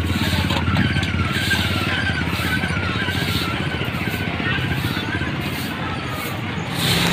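A small engine running steadily at idle, with a fast even pulsing.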